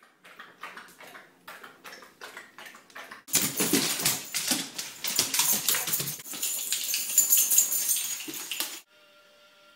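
A basset hound eating from a metal bowl makes a run of crunches and clinks, about three a second. About three seconds in, a much louder stretch of scuffling follows as the dog runs off across a hardwood floor. It stops suddenly near the end.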